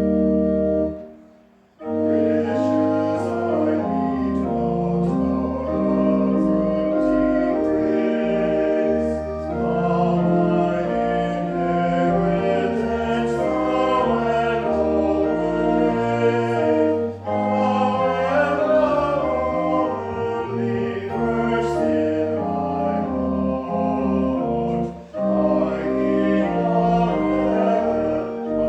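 Church organ playing slow, held chords, with a short break about a second in.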